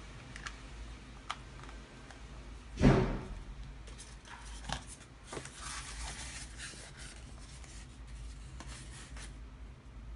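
Handling noise of a Tascam DR-05 handheld recorder and its plastic packaging tray. There are a few light clicks, then a loud knock about three seconds in. After that comes a stretch of rubbing and clicking as the plastic is handled.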